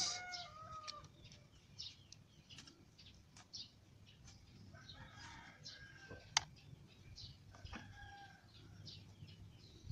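Faint bird calls, short chirps and pitched calls scattered throughout, with one sharp click about six and a half seconds in.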